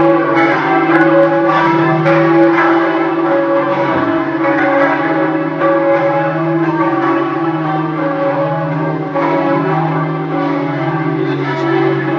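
Church bells pealing, several bells struck again and again so that their ringing tones overlap.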